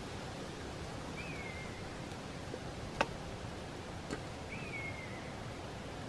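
A sharp wooden knock about halfway through and a lighter one a second later, from kindling being split with a small blade on a wooden board, over a steady background hiss. A short falling whistled call, likely a bird, sounds twice.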